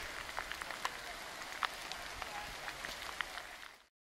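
Rain falling in woodland: a steady hiss with scattered single drops ticking. It cuts off abruptly just before the end.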